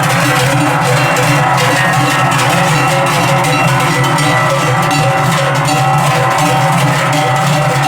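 Many cowbells clanging together in a dense, continuous ringing.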